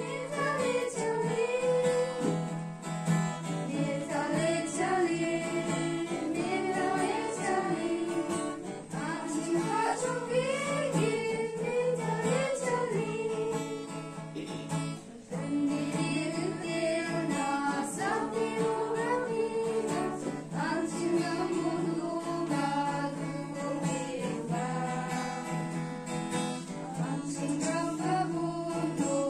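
A group of women singing a song together from songbooks, accompanied by a strummed acoustic guitar.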